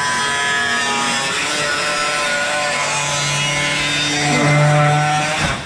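Angle grinder cutting through the sheet-metal hood of a car, a steady high-speed whine with grinding noise. It grows a little louder shortly before it stops near the end.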